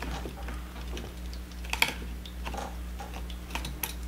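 Kitchen scissors clicking and snipping against the hard shell of a large cooked lobster's arm in scattered, irregular clicks, the loudest about two seconds in. The blades are making no headway on the thick shell.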